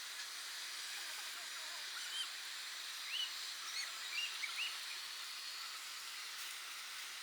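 Steady hiss with a few short bird chirps between about two and five seconds in.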